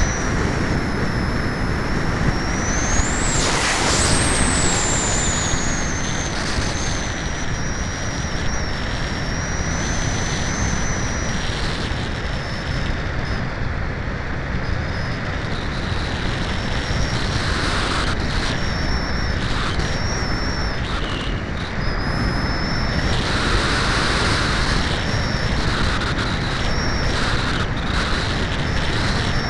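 Steady rush of wind over the onboard keychain camera of a Cularis RC glider in flight, with a thin high whine that wavers in pitch, rising sharply about three seconds in and again near the end.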